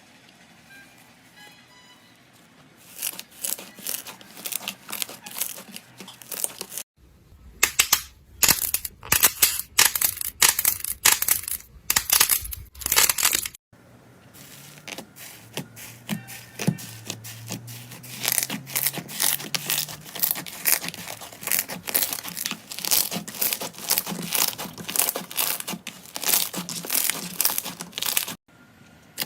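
Slime being squeezed and pressed by hands, making dense trains of crackling, popping clicks. The sound comes in several short clips, with abrupt changes at each cut.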